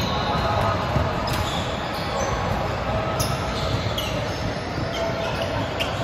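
Echoing din of a large sports hall during an indoor volleyball game, with a few short sneaker squeaks on the hardwood court and faint knocks of play.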